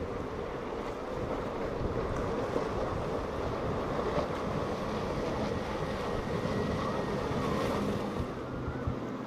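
A large motorboat running fast through choppy water, its engines a low drone under the rush of its spray and the surf, with wind buffeting the microphone.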